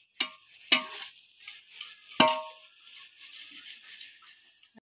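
Metal ladle stirring chicken masala in a metal cooking pot, knocking against the pot three times with short ringing clanks, the loudest about two seconds in.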